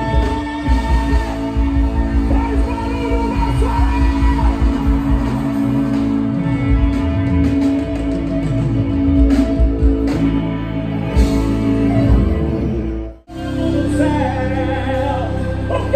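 Live band playing on stage: electric guitar, bass and drums with singing. The sound breaks off abruptly for an instant a little after three-quarters of the way through, then carries on with long held notes.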